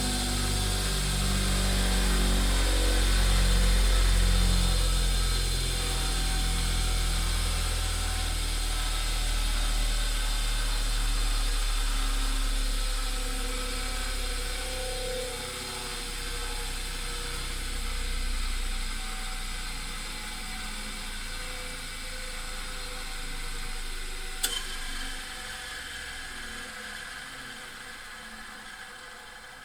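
Grinding wheel motor humming and winding down: its low hum sinks in pitch and fades away over the first half, leaving a dying whir. A single sharp click comes about 24 seconds in.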